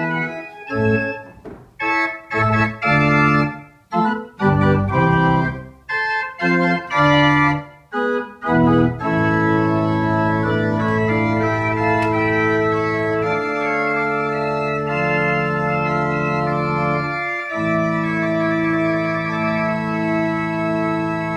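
Binder pipe organ playing chords: short, detached chords with brief silences between them for about the first nine seconds, then long held chords that change slowly, with one short break about three quarters of the way through.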